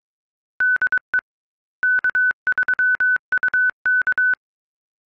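Morse code station identification "DE K3UK", keyed as one steady high tone in dots and dashes by a WINMOR sound card TNC. It is the CW ID sent at the close of a Winlink radio session.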